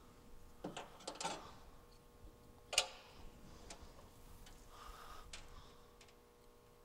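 Faint clicks and rustles of electrical wires and a rubber grommet being handled and fitted, with a cluster of clicks about a second in and one sharper click near the middle.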